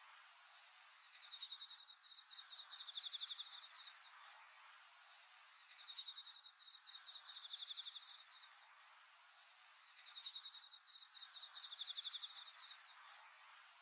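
Insect chirping: rapid pulsed trills at one high pitch, each about two seconds long, three times, over a faint steady background hiss.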